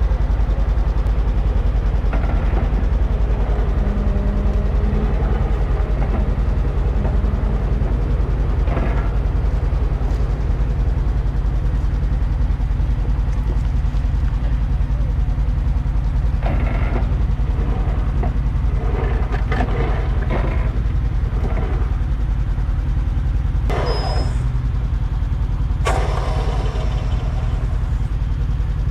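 Off-road recovery vehicle's engine idling steadily close by, with scattered short knocks and clatter, several between about halfway and near the end.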